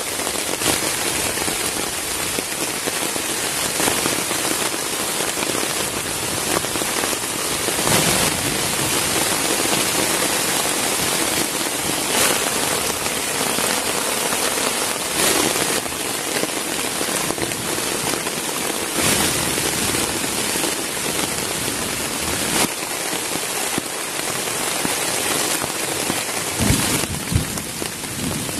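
Steady light rain, a drizzle, falling on a tarp shelter overhead and the surrounding forest, with a louder spatter every few seconds. A couple of low knocks sound near the end.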